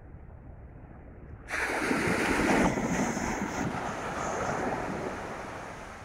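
Atlantic surf on a sandy beach: a low, dull rush of wind and water, then about a second and a half in a much louder wash as a wave breaks and runs up the sand, slowly fading near the end.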